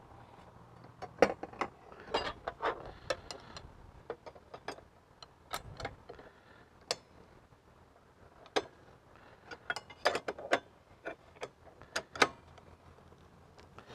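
Metal clinks, taps and knocks of a saw blade being set onto a compact table saw's arbor and the arbor nut tightened with flat steel wrenches: a string of irregular sharp clicks.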